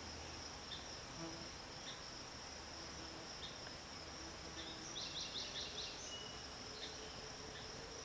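Steady high-pitched insect chorus with faint chirps scattered through it, and a quick run of about six rising chirps around five seconds in.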